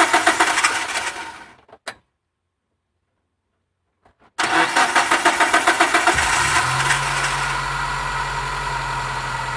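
Car engine cranking on its starter, a rapid even beat of several pulses a second that dies away. After a dead-silent gap of about two seconds it cranks again, catches about six seconds in and settles into a steady idle.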